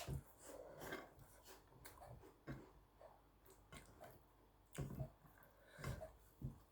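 Quiet close-up eating sounds: chewing and mouth noises with small clicks, and a handful of louder short smacks scattered through.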